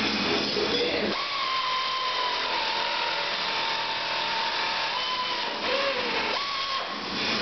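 Air-powered hand tool on a compressor hose running with a steady high whine that sags slightly in pitch for about four and a half seconds, stopping briefly and then running again for a short burst near the end.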